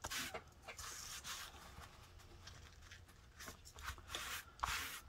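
Hands smoothing a Mod Podge-coated paper towel down onto a journal page: faint, soft papery rubbing strokes, one louder swipe near the end.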